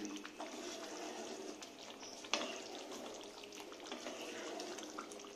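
Thick potato curry gravy simmering in a pan, bubbling and spluttering with a spatula stirring through it, and one sharp knock about two seconds in.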